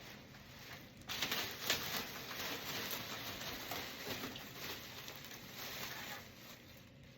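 Rustling and crinkling of packaging being handled and pulled off a freshly unboxed bass drum shell. It starts about a second in with a few sharper crackles and dies down near the end.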